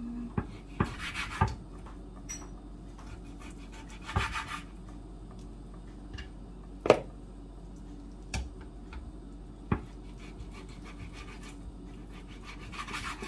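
Kitchen knife slicing raw pork on a bamboo cutting board: scraping, sawing strokes and single sharp knocks of the blade on the board every second or two, the loudest about seven seconds in. The knife is so dull that it saws through the meat.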